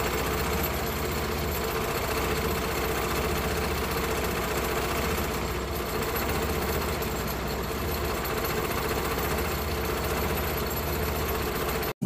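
Suzuki F6A three-cylinder carbureted engine idling steadily from a cold start, rough and shaking, its idle climbing gradually toward 800 rpm as it warms. The sound cuts off abruptly near the end.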